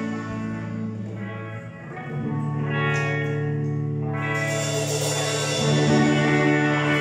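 Live amateur rock band playing an instrumental passage: electric guitars, electric bass and keyboard holding long sustained chords that change every second or two.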